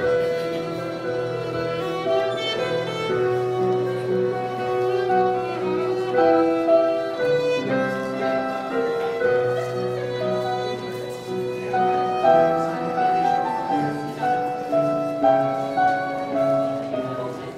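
Country dance tune led by a fiddle, its melody moving step by step over long held bass notes.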